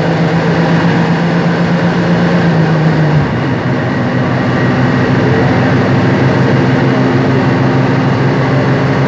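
Heavy bus diesel engine running under load, heard from inside the bus over steady road noise while overtaking. The engine note steps down in pitch about three seconds in, as on a gear change, then holds steady.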